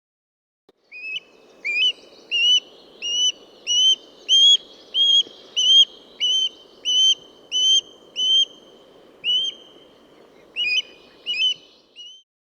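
A bird calling a long series of about fifteen short, clear whistled notes, each rising sharply and then levelling off, at a little over one a second. A faint steady background hiss lies under it.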